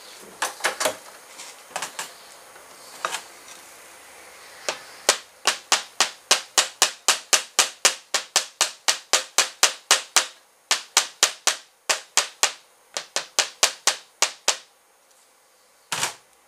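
Small hammer tapping a bent-wire line guide into place on a roller speargun: a few scattered light taps, then a long run of quick taps, about three a second, broken by two short pauses, and one last tap near the end.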